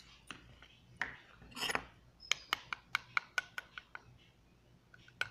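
Faint handling of a small plastic bag of ground cinnamon, rustling as it is opened, then a quick run of about ten light clicks over a second and a half while it is tipped over a metal spoon.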